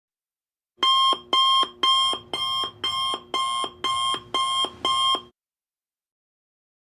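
Electronic alarm-clock beeping: nine evenly spaced beeps, about two a second, that stop abruptly.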